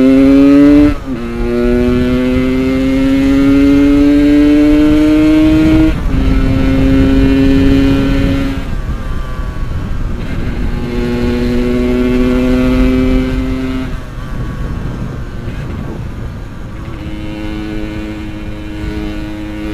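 Yamaha RX-King's two-stroke single-cylinder engine under way, revving up with a gear change about a second in, climbing again, then holding steadier speeds with the throttle easing off and picking up several times.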